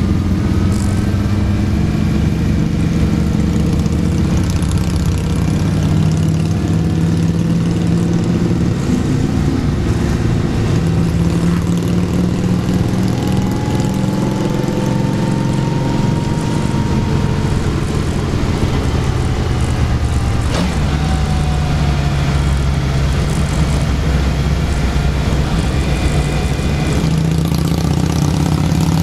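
Motorcycle engines running at road speed during a group ride, a steady drone whose pitch shifts as the bikes speed up and slow down through the bends. A single sharp knock about two-thirds of the way through.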